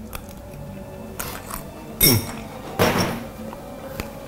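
Spoons clinking on ceramic bowls as two people taste risotto. About two seconds in comes a loud, short sound whose pitch drops steeply, then a short hissing burst, and a single click near the end.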